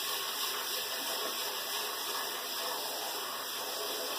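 Kitchen faucet running a steady stream of water into a metal pot of brown rice, rinsing the rice.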